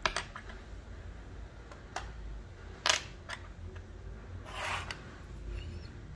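Plastic keycaps being handled and set down: a few sharp clicks and taps, the loudest about three seconds in, and a short rustle about four and a half seconds in.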